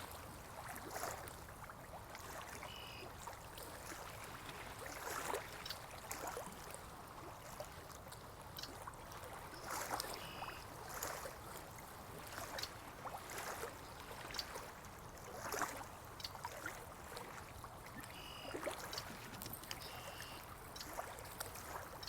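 Water trickling and splashing in a stream, with a few short, faint bird chirps now and then.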